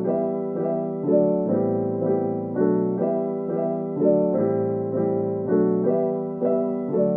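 Background music: an electric piano playing a gentle chord pattern, the notes changing about twice a second.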